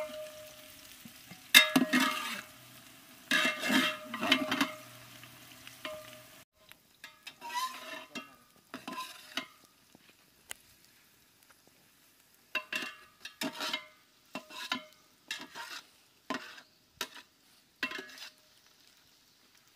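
A long-handled metal spatula stirring sliced onions as they fry in oil in a large metal pot, scraping against the pot again and again. The onions sizzle faintly under the strokes for the first few seconds. After that come separate scrapes, about one a second.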